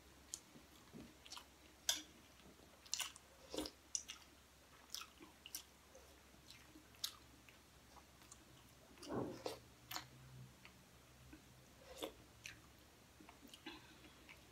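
Faint chewing with scattered short clicks and smacks, with light scrapes of a fork in a plastic food container and a spoon in a steel pot. A slightly louder scrape or smack comes about nine seconds in.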